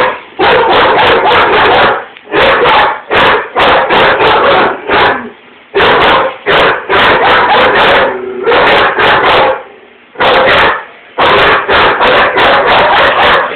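German Shepherd and rottweiler barking loudly, several barks a second, in volleys of one to two seconds broken by short pauses. This is alarm barking at something outside, with the two dogs barking at each other.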